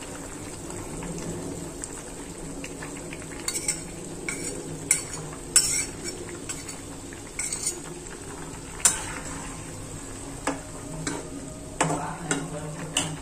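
A spatula scraping and tapping against a frying pan and plate as paste is added to a curry and stirred in, with the pan simmering steadily underneath. About ten sharp clicks come at irregular moments, the loudest about nine seconds in.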